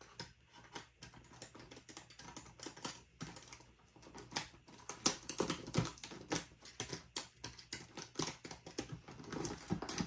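Box cutter slicing open the tape on a cardboard box, with the box scraping and knocking as it is handled: a run of quick, irregular clicks and scrapes that gets busier about halfway through.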